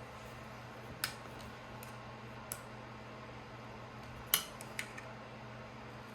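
A few scattered, faint metallic clicks and taps of small chainsaw parts being handled while a new oiler wick is fitted, over a low steady hum.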